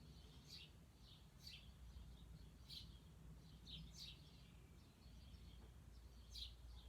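Faint short bird chirps repeating about once a second at uneven intervals, over a low steady hum.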